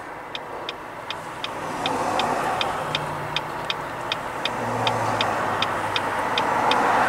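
Car turn-signal indicator ticking steadily, about two to three ticks a second, over the car's engine and road noise inside the cabin; the road noise grows a little louder from about two seconds in.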